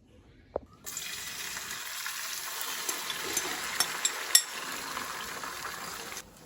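Water running from a kitchen tap: a steady gush that starts suddenly about a second in and stops suddenly near the end, with a few light clinks over it.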